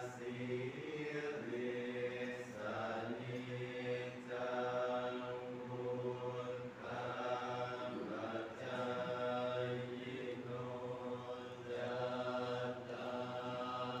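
A group of voices chanting Buddhist verses together in a steady, drawn-out recitation, in sustained phrases of a second or two.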